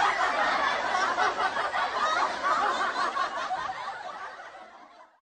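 A man laughing, the sound fading out gradually over the last couple of seconds.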